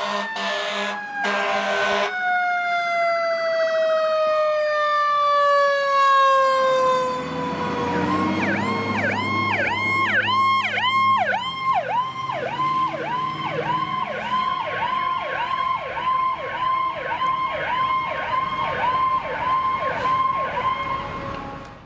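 A fire engine's wailing siren slowly falling in pitch, with a few short horn blasts in the first two seconds. Then a utility pickup's electronic siren takes over in a fast up-and-down yelp, about two cycles a second, over the sound of a truck engine passing.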